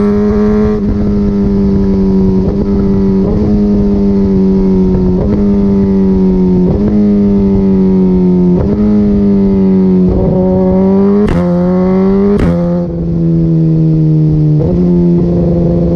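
Suzuki GSX-R1000R's inline-four running loud through an Akrapovic Evolution full exhaust system at steady high revs, its note dipping briefly about once a second. Two sharp exhaust pops come near the end, and the engine note drops after the second.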